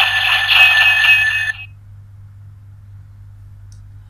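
DX Fourze Driver toy belt playing the Chain Array Astroswitch's electronic sound effect through its small speaker, a loud ringing, jangling effect likened to a wrecking ball being swung. It cuts off about one and a half seconds in, leaving a low steady hum.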